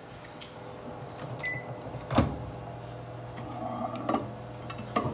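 A few sharp knocks and clinks of bowls and utensils on a dining table, the loudest about two seconds in, over a steady low hum.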